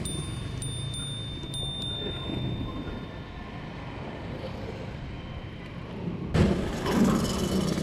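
Street traffic and road noise heard while riding a stand-up scooter: a steady low rumble from motorbikes and cars, with a thin high steady tone in the first few seconds. The noise gets suddenly louder about six seconds in.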